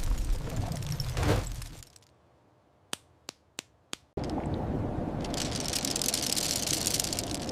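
Rushing, hissing water noise dies away, then a spell of near silence broken by four sharp clicks, and the rushing starts again suddenly.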